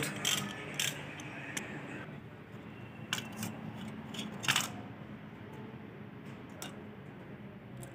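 Scattered light metallic clicks and clinks, the loudest about four and a half seconds in, as a clutch cover and disc are lifted off an engine flywheel and a ratchet and loose bolts are handled on a concrete floor.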